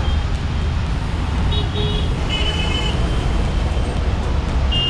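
Steady city street traffic rumble, with a few short high-pitched horn toots about halfway through and again near the end.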